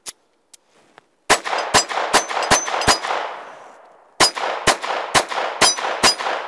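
Ruger LCP II .22 LR pistol firing ten shots in two strings of five, about half a second between shots. An echo trails off after each string.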